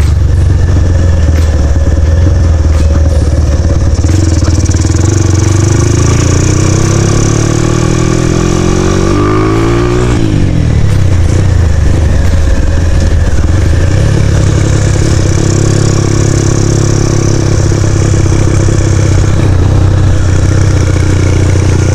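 Honda Tiger motorcycle's single-cylinder engine through an aftermarket racing muffler, running under way. The revs climb steadily for several seconds, drop sharply about ten seconds in, then hold steady.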